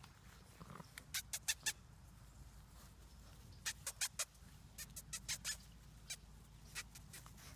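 A black Labrador puppy sniffing at the grass with its nose down, quick sniffs in short runs of three to five, a few runs in all.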